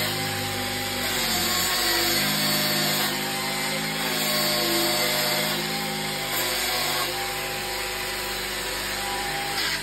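Angle grinder running against the end of a white boiler flue pipe, grinding a tapered edge onto it so it slips into the rubber seal; the motor's pitch shifts up and down several times as the disc bears on the pipe.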